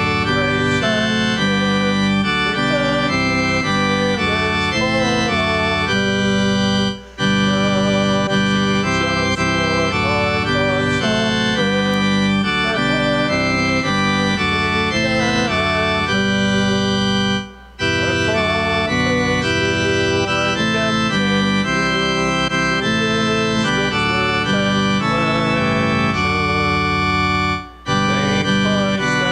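Church organ playing a hymn in sustained chords, breaking off briefly three times between phrases, about every ten seconds.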